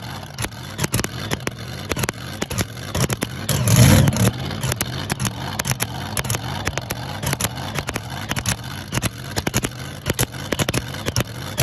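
Supercharged Hemi V8 of a mini rod pulling tractor idling roughly during warm-up, with irregular sharp exhaust pops. It is blipped once to a louder, fuller rev about four seconds in.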